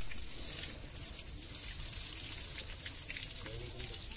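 Water spraying from a garden hose onto an elephant's hide, a steady hiss of spray and splashing water.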